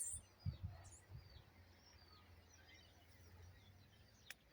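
Faint chirping of small birds, many short calls scattered throughout, with a few soft low thumps in the first second.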